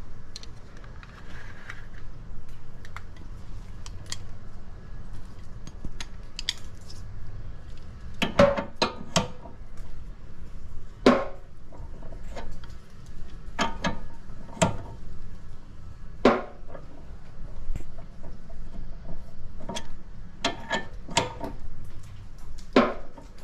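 Irregular metallic clicks and clanks of hand tools and steel suspension parts being handled at a car's front wheel hub, a dozen or so sharp knocks a second or more apart, most of them in the second half.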